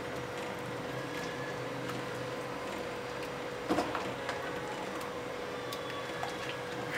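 A silicone spatula stirring a thick, milky sheer khurma in a nonstick pot, soft and faint over a steady background hum. A brief louder scrape comes about halfway through.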